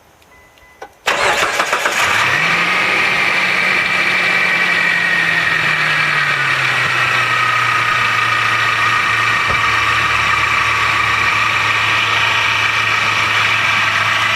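Mitsubishi Montero Sport engine cranked by the starter about a second in, catching and running at a fast idle that drops and settles into a steady idle. A high-pitched squeal runs over the engine, which the owner suspects comes from a worn, cracking belt.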